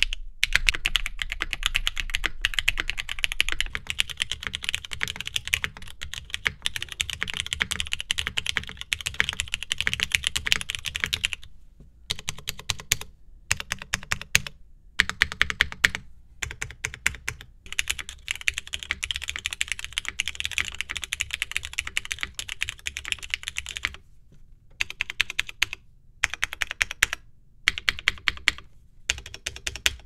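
Custom mechanical keyboards typed on steadily in a sound test, a fast run of sharp key clicks, including a Geonworks F2-84 with Cherry Nixie switches built plateless and with a POM plate. The sound breaks off for short gaps several times between takes. The plateless build is quieter and lets the FR4 circuit board's own sound come through, while the plated build is louder and fuller.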